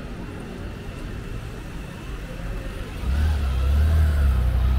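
Street traffic, with a motor vehicle's engine rumbling loudly close by from about three seconds in.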